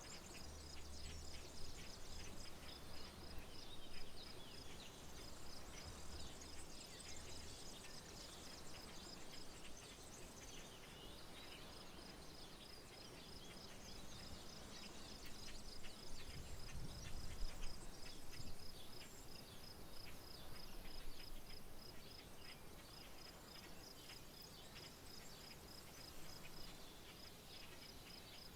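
Rural outdoor ambience: an insect keeps up a steady, fast-pulsing high trill throughout, over scattered bird chirps. A low rumble comes and goes.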